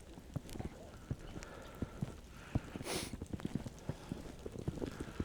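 Footsteps crunching through snow, an irregular run of soft knocks from a walker, with a short hiss about three seconds in.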